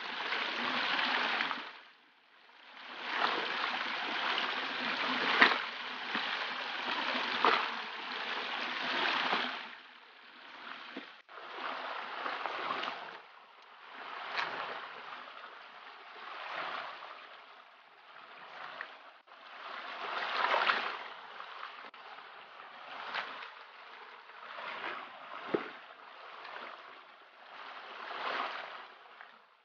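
Shallow river water running and splashing as hands wash gravel on a carpet mat in the current and load stones into a plastic bucket, with occasional sharp knocks. The water sound breaks off and starts again a few times.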